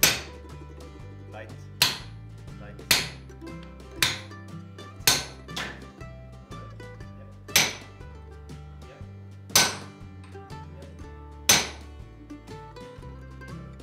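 Sledgehammer blows striking a hand-held top tool set on red-hot axe steel on an anvil: nine sharp metallic strikes about one to two seconds apart, one lighter blow falling just after the fifth. Background music plays underneath.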